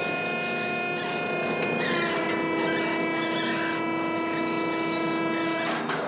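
Herring seiner's engine and deck machinery running with a steady hum and whine as the purse seine pays out; the pitch of the whine shifts slightly about two seconds in.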